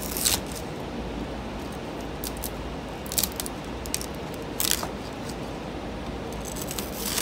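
Knife blade skimming under a 3D-printed plastic raft to peel it off the printed part: a few short, scattered scrapes and clicks of blade on plastic over a steady background hum.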